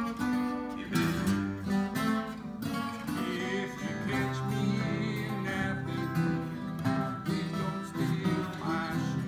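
Several acoustic guitars strumming a blues together, with a man singing over them.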